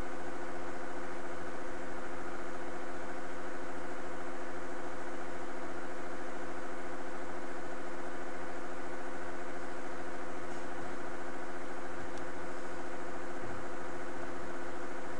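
A steady machine hum at an even level, made of several constant tones over a low drone, with no change in speed.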